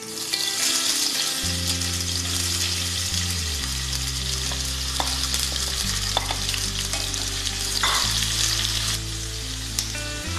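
Sliced onions frying in hot oil in a stainless steel pressure cooker: a loud sizzle that starts as they go into the pan, with a few light clicks.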